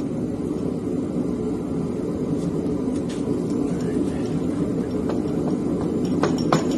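A steady low rumble runs throughout. About six seconds in, a quick series of sharp metal knocks begins as the cylinder head is worked loose from the engine block.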